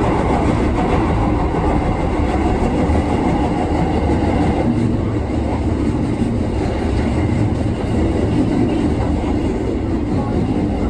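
A train running on the rails: a steady, loud rumble that holds throughout.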